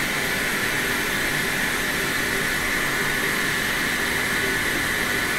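Steady, even rushing noise of a running fan or air blower, with no other sound over it.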